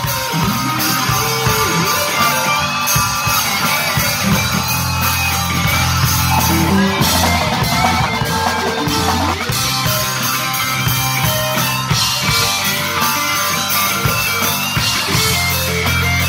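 Rock band playing live: electric guitars over a drum kit, with sustained low notes under them that change every few seconds.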